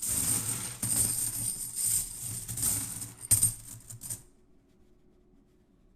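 Silver Franklin half dollars being poured out of a bag onto a pile of coins: a dense metallic jingling and clinking for about four seconds, then it stops.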